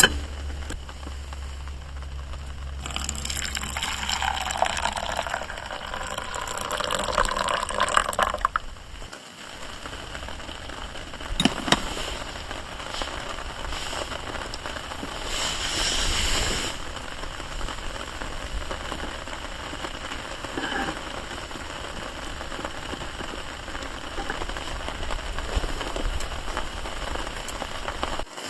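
Liquid poured into a vessel for about five seconds, its pitch rising as the vessel fills, over steady rain pattering on a tarp.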